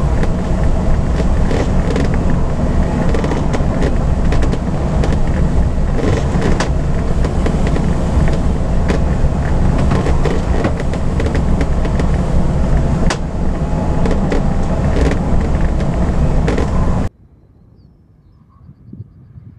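Steady rush of air around a glider's cockpit in flight, a loud low rumble with occasional light clicks and knocks. About seventeen seconds in it cuts off suddenly to a much quieter open-air background.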